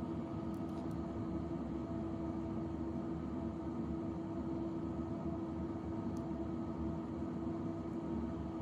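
Steady hum of running repair-bench equipment: a low drone with a few held tones over a light hiss.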